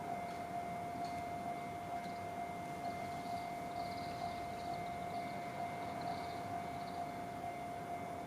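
Japanese railway level-crossing alarm ringing, a steady electronic bell tone repeating in an even rhythm.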